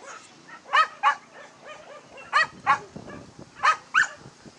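A dog barking high-pitched double barks, three pairs about a second and a half apart, with fainter barks in between.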